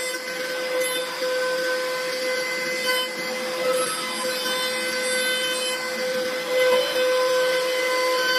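CNC wood-turning lathe running: a steady high whine from the spindle over a hissing noise.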